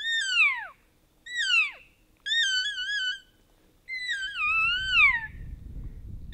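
Elk cows and calves mewing: a series of high, whistly calls, some wavering and most sliding steeply down in pitch, about five in all, two of them overlapping around four seconds in. A low rumble joins about four seconds in.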